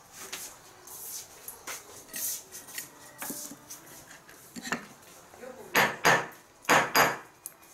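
Small hard objects clicking and clinking as they are handled, then four loud sharp knocks in two quick pairs.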